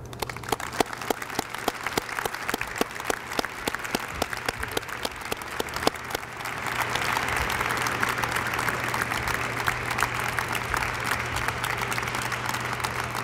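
Audience applauding after a speech. It starts as scattered individual claps and swells into fuller, denser applause about six seconds in.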